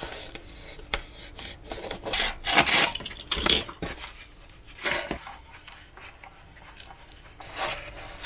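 Filament tape being handled and rubbed down by hand onto a Depron foam wing: several short scratchy rubbing bursts, the loudest about two to three and a half seconds in.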